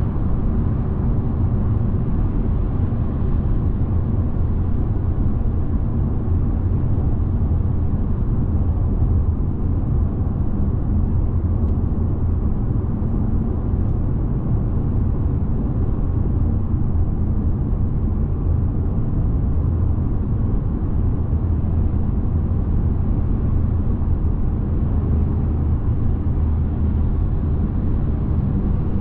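Steady low rumble of a car driving along a motorway: tyre and engine noise that holds an even level throughout.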